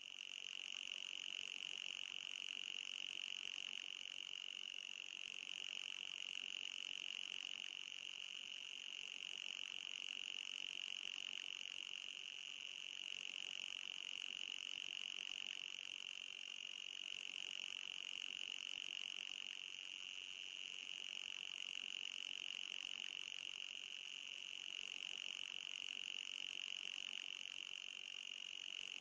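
Anti-mosquito repeller sound effect: a continuous shrill high-pitched electronic tone with a fainter, even higher tone above it, wavering slightly every few seconds.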